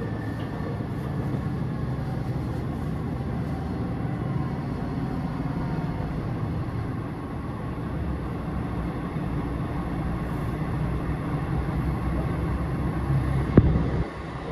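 Cabin running noise of the Super Hakuto's HOT7000 series diesel railcar under way: a steady low rumble of engine and wheels on rail. One sharp knock comes near the end.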